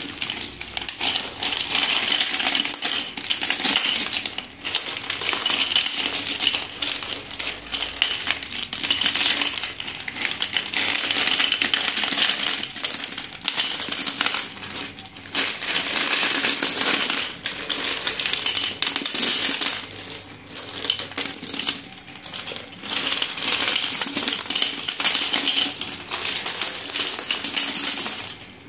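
A big pile of slate pencils stirred and scooped by hand in a steel bowl: a dense, continuous clattering and clinking of the hard thin sticks against each other and the metal, with short lulls every few seconds.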